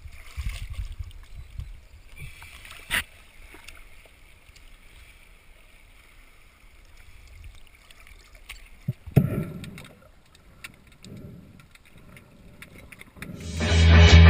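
Water sloshing and lapping at the surface around a snorkelling diver and his float tube, close to the camera. There is a sharp knock about three seconds in and a louder burst of water about nine seconds in, and guitar music starts near the end.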